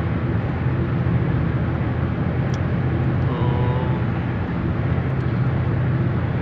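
Steady road noise inside the cabin of a Nissan car cruising at highway speed: a constant low rumble of engine and tyres with a hiss of wind and road on top.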